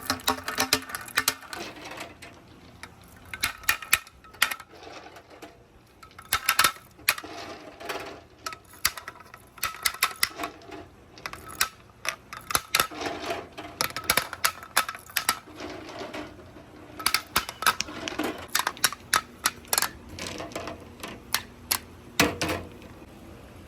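Balls running down a wooden and metal marble run, with rapid irregular clicking and clattering in bursts. Some strikes ring briefly off metal.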